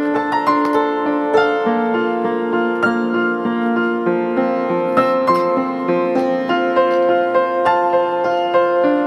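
Background music played on a piano-like keyboard: a steady run of single notes forming a gentle melody.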